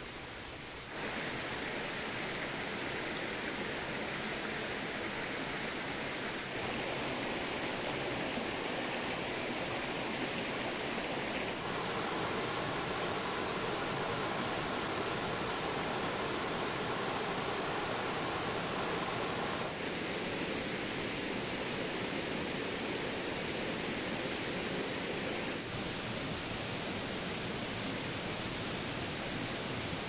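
Water of a small rainforest waterfall splashing and rushing over rocks in a steady stream, its tone shifting abruptly a few times.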